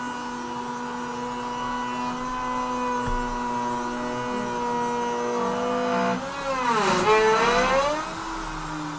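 LongMill CNC router's trim-router spindle running with a steady high whine as the bit cuts into a wood board. About six seconds in the pitch dips sharply and climbs back over about two seconds, and this is the loudest part.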